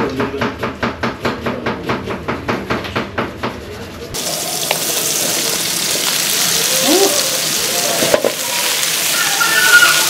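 A kitchen knife chopping quickly on a cutting board, about five strokes a second, until about four seconds in; then sliced onions and carrots sizzling in a hot frying pan, a steady loud hiss with a few short squeaks.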